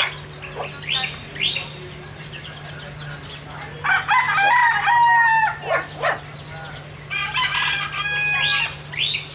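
Mestizo rooster crowing twice: a long, loud cock-a-doodle-doo about four seconds in and a second, quieter crow about seven seconds in, with short chirps between.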